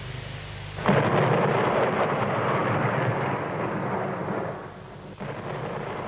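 A thunderclap breaks suddenly about a second in and rumbles for about four seconds, then cuts off abruptly, over steady rain.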